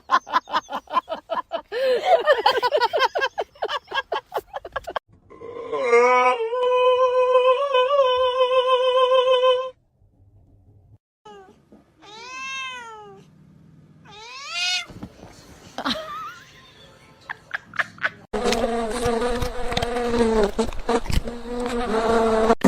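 Cats meowing and yowling in a string of calls: a long held yowl of about four seconds, a few shorter meows that rise and fall in pitch, and another long yowl near the end.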